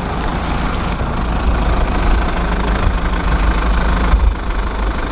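Steady rushing spray of water washing mud off a toy truck, with a strong low rumble underneath.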